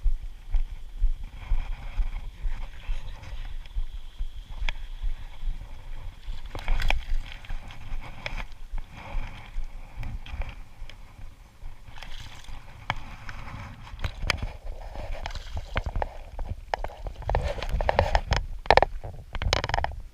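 Knocks and clicks of gear against a kayak over a steady low rumble, with a cluster of sharper knocks near the end.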